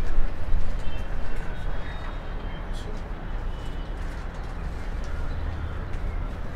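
Outdoor city ambience: a steady low rumble with a few faint, brief bird chirps.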